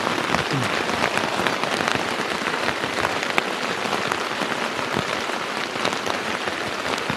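Steady rain falling on and around a teepee tent, heard from inside its open doorway: an even hiss with many small, sharp ticks of drops striking.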